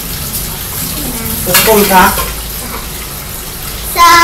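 Steady fizzing, bubbling water noise from a fish tank. A child's voice breaks in briefly about a second and a half in, and a loud held high tone starts near the end.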